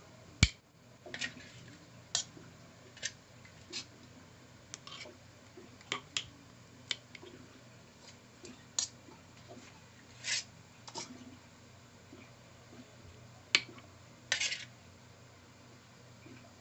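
Metal spoon clinking and scraping against a glass jar and a pan as oily dried fish and carrot slices are spooned into the jar. The clinks are sharp and come irregularly, about once a second, with a short scraping rattle about ten seconds in and another about fourteen seconds in.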